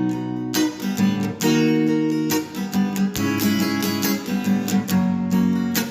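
Music without singing: an acoustic guitar strummed in chords, changing chord every second or two.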